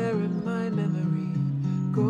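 Background music: a gentle piece led by plucked acoustic guitar, its notes changing step by step.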